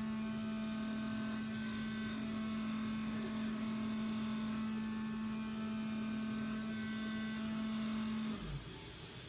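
CNC vibrating-knife leather cutting machine running with a steady high hum, which falls in pitch and stops about eight seconds in as the motor winds down.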